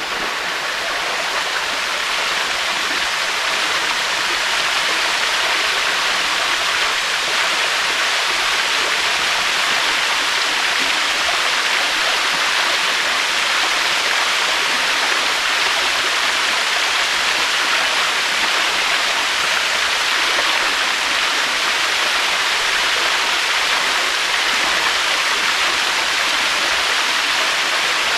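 Waterfall rushing: a steady, dense hiss of falling water with no surges, fading in over the first couple of seconds.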